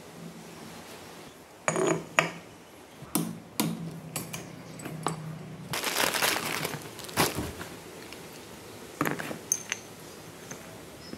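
Metal parts of a scooter's CVT variator and its roller weights clinking and clattering as they are handled and set down on a workbench, with a plastic parts bag rustling about six seconds in.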